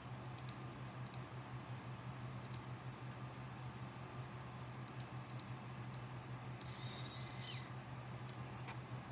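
Computer mouse clicking, single clicks spread irregularly over a steady low hum. A brief high-pitched whine with a falling tail sounds about seven seconds in.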